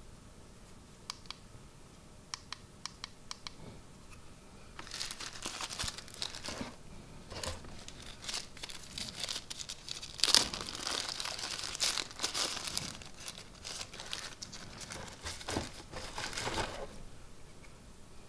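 A few light clicks as a small plastic part is handled. Then about twelve seconds of crinkling as a thin plastic wrapper is peeled off a small wireless-microphone transmitter, loudest about halfway through.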